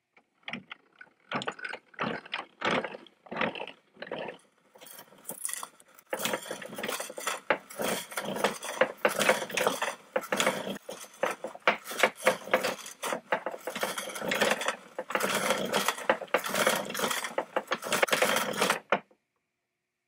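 Early-1900s James Swan cast-iron beam drill (boring machine), hand-cranked, its auger bit boring into a wooden beam: a dense run of quick cracks and scrapes as the bit cuts out chips. It comes in short spells at first, then runs almost without a break from about six seconds in until it stops shortly before the end.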